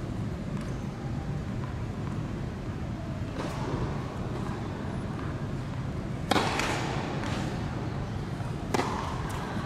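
Tennis ball impacts on an indoor hard court, echoing in the hall over a steady low hum. There are three impacts: a soft one about three seconds in, the loudest about six seconds in, and a sharp hit near the end as the serve is struck.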